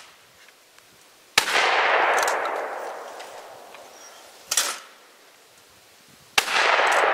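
Two shotgun shots about five seconds apart, each a sharp crack followed by a long rolling echo that fades over a couple of seconds. A brief, quieter noise falls between them.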